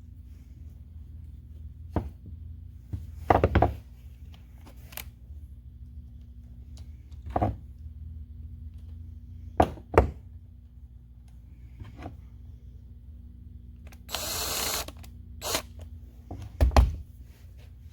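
Scattered sharp metal clicks and knocks as the parts of a 1/2-inch air impact wrench are handled and fitted back together, with a brief hiss about fourteen seconds in.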